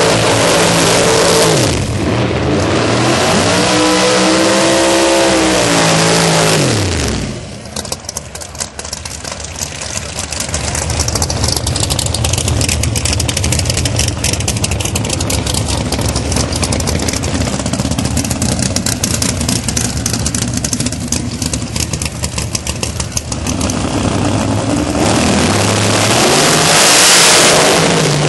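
Pro Nitrous drag-race V8 engines: a burnout with the engine revving up and down, then the pitch drops away to a rough, crackling idle while the cars stage, and about 25 seconds in both cars launch at full throttle, the engines rising in pitch.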